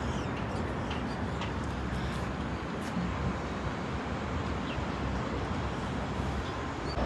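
Steady background of distant city traffic: an even rumble and hiss with no single vehicle standing out.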